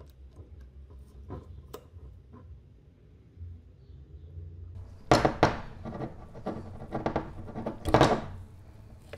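Metal parts of a rusty revolver being handled: a few faint clicks, then about five seconds in, some three seconds of louder metallic clattering with several sharp knocks.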